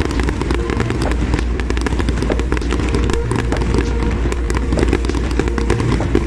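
Aerial fireworks going off in quick succession: a dense, unbroken run of crackling pops and bangs.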